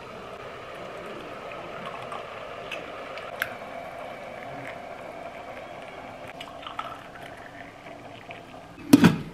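Tea being poured, a steady liquid fill, with a light clink about three and a half seconds in and a louder knock near the end.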